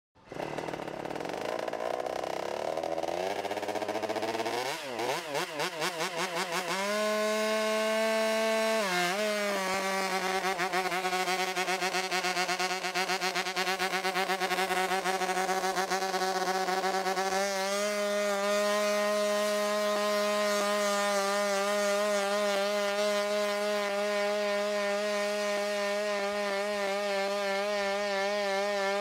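WildCat quadruped robot's on-board combustion engine running. Its pitch climbs and wavers over the first several seconds, dips briefly about a third of the way in, then settles into a steady, slightly wobbling buzz while the robot runs, with the loudness fluttering rapidly for a long stretch in the middle.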